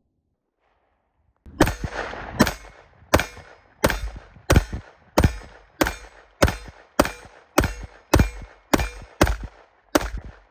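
Browning BDM 9mm pistol firing a steady string of about fourteen shots, roughly one every two-thirds of a second, starting about a second and a half in.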